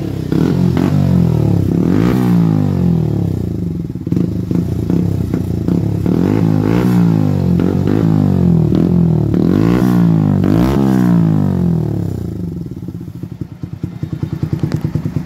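Bajaj Pulsar NS125's single-cylinder engine revved repeatedly through an Akrapovic-branded end can on a straight-through pipe that replaces the stock silencer, its pitch climbing and falling with each blip. Near the end it settles back to a lumpy, pulsing idle.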